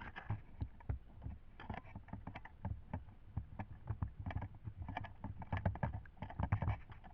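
Irregular low thumps and sharp clicks with rustling, the sound of movement close to the microphone.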